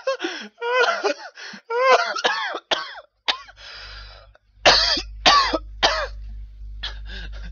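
A man laughing hard in high-pitched bursts, then a wheezing breath and three sharp coughs about half a second apart, as he chokes on his own laughter.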